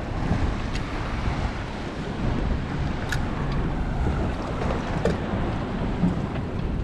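Wind buffeting the microphone over choppy water lapping against a small boat, a steady rushing noise. A few light, sharp clicks sound about one, three and five seconds in.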